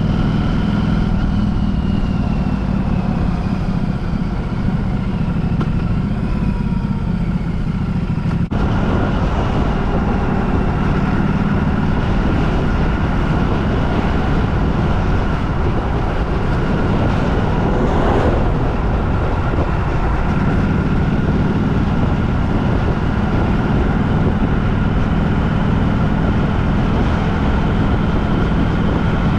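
Steady running noise of a moving vehicle: a continuous low rumble with a constant engine hum, broken for a moment about eight seconds in.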